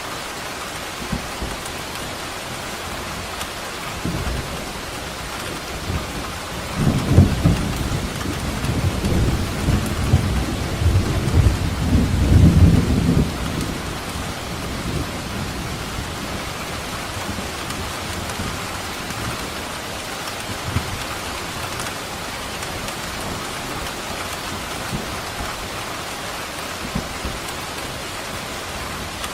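Steady rain falling, with a long roll of thunder rumbling from about a quarter of the way in to nearly halfway through, loudest around the middle.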